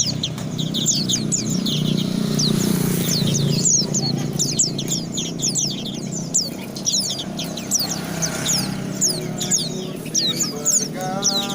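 A pleci (white-eye, Zosterops) singing a fast, unbroken stream of high, down-slurred chirps, over a steady low hum.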